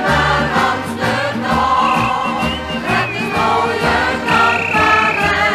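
Background music: an instrumental stretch of an old Dutch sing-along song, with choir-like voices and a steady bass line and no sung words.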